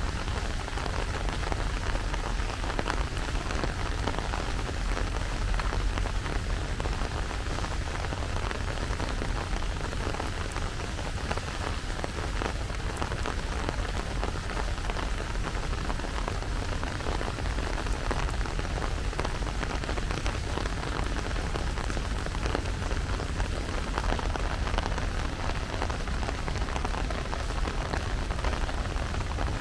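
Steady rain falling: an even hiss of rain with many small drops ticking close by, over a steady low rumble.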